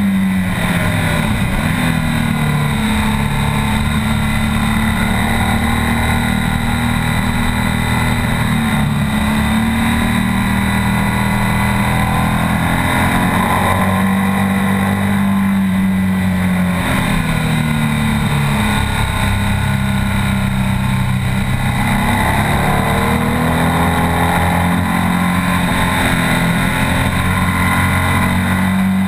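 A BMW R 1200 S's 1170 cc boxer twin, heard from onboard, running hard on track. The revs rise and fall repeatedly as the bike accelerates, shifts and slows for corners.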